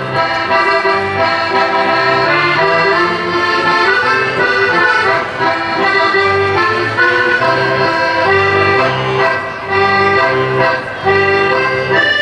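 Accordion playing a lively Dutch folk-dance tune, held melody notes over a steady, even bass beat.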